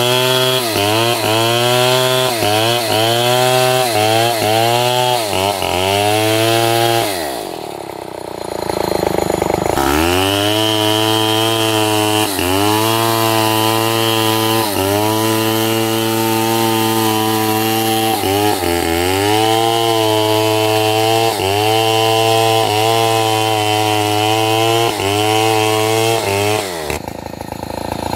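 Two-stroke chainsaw cutting wood at high revs. Its pitch dips and recovers about every half second at first. It falls to idle about seven seconds in, revs back up about three seconds later and cuts again with a dip every couple of seconds, then drops back near the end.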